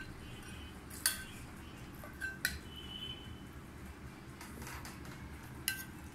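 Metal serving spoon clinking against ceramic serving bowls and plates while food is dished out: a handful of sharp, short clinks, one about a second in, two close together around two and a half seconds, and one near the end.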